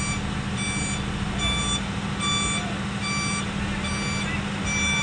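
Truck's reversing alarm beeping, one short beep roughly every 0.8 seconds, while the truck backs up. Under it runs a steady low engine hum.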